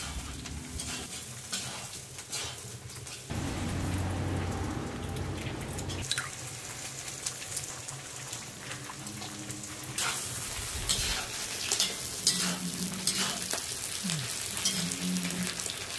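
Pieces of beef liver frying and sizzling in hot oil, with occasional small clicks as they are stirred.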